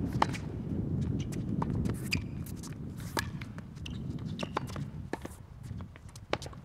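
Tennis rally: several sharp strikes of racquet on ball, with footsteps and shoe scuffs on the court, over a steady low rumble of wind on the microphone.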